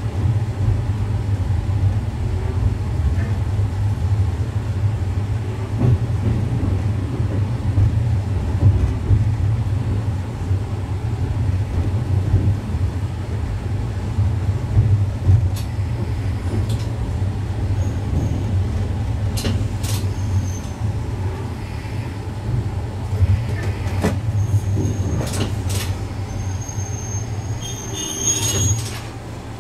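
Diesel railcar running slowly, heard from the cab: a steady low engine rumble with scattered sharp clicks from the wheels over rail joints and points. A high squeal comes near the end as the railcar slows and the sound drops away.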